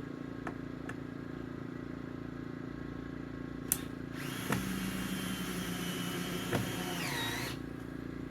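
A cordless drill/driver runs steadily for about three and a half seconds with a high whine, then winds down with a falling pitch. A sharp click comes just before it starts, and a steady low hum runs underneath.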